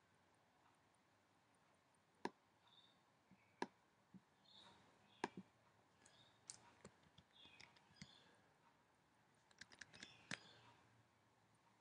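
Faint, sparse clicks of a computer keyboard and mouse: a few single clicks, then two short runs of key presses as a word is typed.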